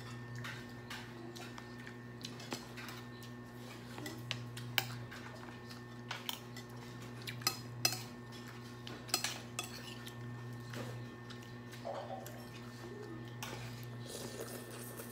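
Spoons and dishes clinking at a meal: scattered sharp clinks of cutlery against bowls, a few louder ones near the middle, over a steady low hum.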